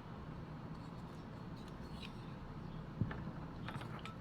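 Faint clicks and small taps of a vintage 8 mm movie camera being handled, with one sharper click about three seconds in, over a steady low hum.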